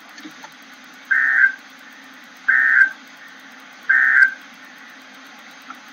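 Three short bursts of Emergency Alert System digital data tones, a harsh electronic buzz repeated about a second and a half apart over a faint hum. Their shortness and place right after the spoken warning fit the End of Message code that closes the alert.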